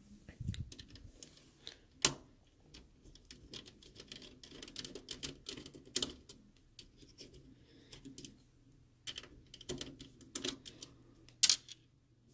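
A Phillips screwdriver working the small screws that hold a speaker inside a plastic laptop chassis: irregular light clicks and scrapes of the driver tip and tools against plastic and metal, with a few sharper clicks about two seconds in and near the end.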